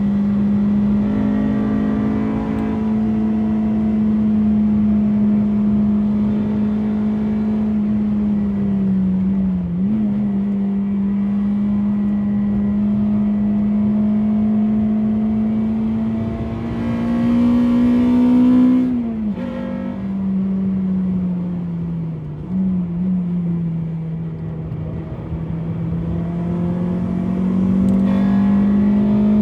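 Honda Civic EP3's K20A2 inline-four engine running hard at high, fairly constant revs. Its note is broken by brief dips at gear changes about ten and nineteen seconds in, and drops lower around twenty-two seconds before climbing again near the end.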